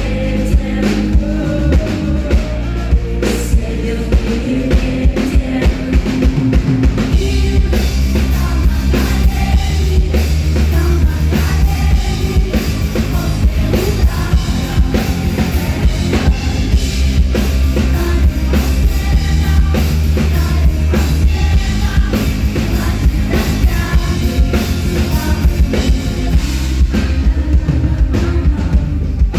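Live band playing a song, with a drum kit keeping a steady beat over loud bass and some singing.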